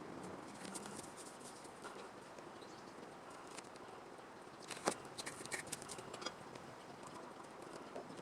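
Scattered small clicks and taps of handling over a faint steady hiss, with a sharp click and a quick run of taps about five seconds in.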